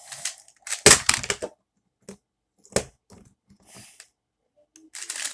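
Plastic clacking of a non-magnetic Rubik's Speed cube being turned fast during a speedsolve, coming in short bursts of clicks. The loudest burst is about a second in and a dense run of turns follows near the end.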